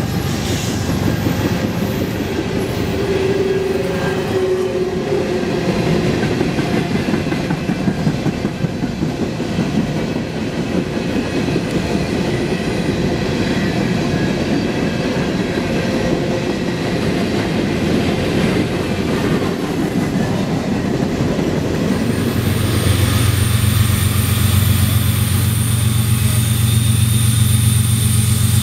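A string of open coal hopper cars on a freight train rolling past, the steel wheels clattering on the rails. About 22 seconds in, it changes abruptly to the steady low drone of approaching GE diesel-electric locomotives, an ES44AC and a C44-9W.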